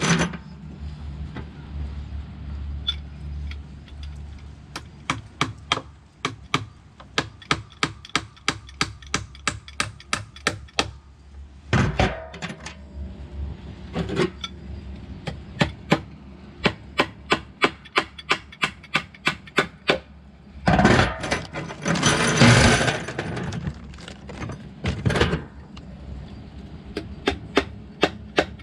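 Hammer striking wood again and again, about two sharp blows a second. The run pauses about twelve seconds in and is broken near twenty-one seconds by a few seconds of louder rasping noise.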